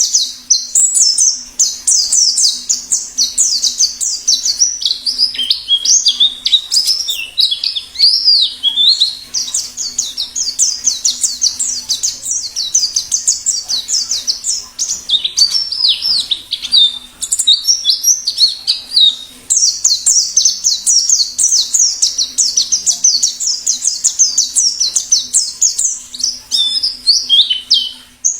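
White-eye (pleci) singing a fast, unbroken twittering song of high, rapidly repeated notes in the wild-type 'ngalas' style.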